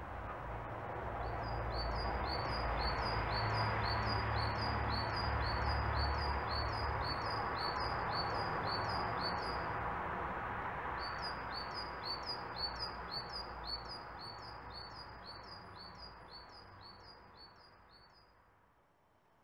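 A small songbird calling over and over with a short, high, falling chirp, about two to three a second, in two runs with a brief pause between them. Under it is a broad rushing noise that swells and then fades away toward the end.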